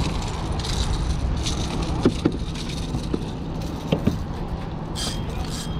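Handling noises in a kayak: metallic rattling and a few light knocks, the sharpest about two seconds and four seconds in, over a steady low wind-and-water rumble.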